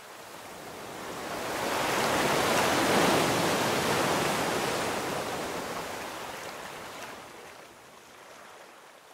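A single long swell of rushing noise, rising over about two seconds, loudest about three seconds in, then fading away slowly over the next five seconds.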